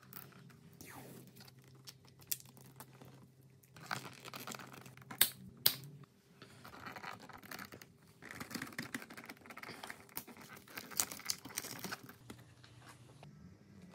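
Hands handling a motorcycle's wiring harness and hoses: irregular rustling and crinkling of cables, with a few sharp clicks, the two loudest close together a little past the middle.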